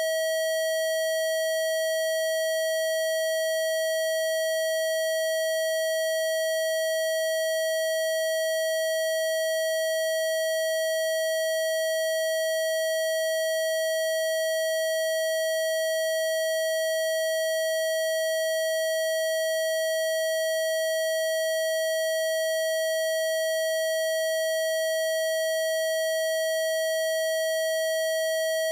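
A single steady electronic tone, mid-pitched with faint higher overtones, held without any change in pitch or loudness: a Rife-style 'healing frequency' test tone.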